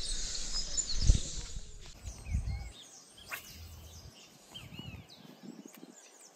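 Small birds chirping in short repeated calls, with a low rumbling noise on the microphone that stops abruptly a little under three seconds in.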